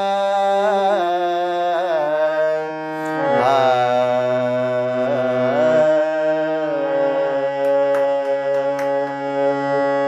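A man sings long, ornamented held notes of a Marathi devotional song over a harmonium's sustained notes. The voice stops about six seconds in and the harmonium goes on holding its notes alone.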